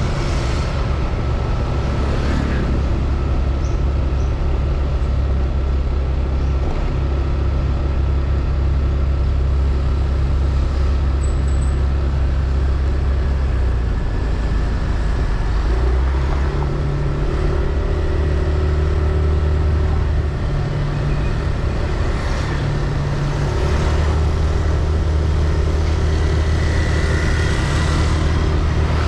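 A motorbike's engine running while it rides through town traffic, with steady road and traffic noise. The low engine rumble is steady, and its pitch shifts a few times around the middle as the bike changes speed.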